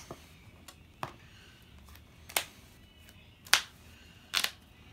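Sharp, short clicks and snaps of trading cards being handled and laid down, about six in all, roughly a second apart, with the loudest about three and a half seconds in and a quick double click near the end.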